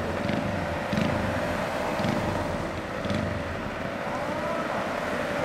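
Small motorbike engines idling while stopped in traffic: a Honda Monkey 88cc minibike with a racing exhaust and a Yamaha Jog scooter. A steady pitched drone runs throughout, with low pulses about once a second in the first few seconds.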